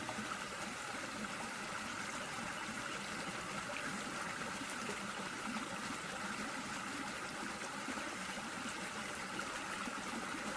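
Creek water pouring over a waterfall, a steady even rush with no breaks.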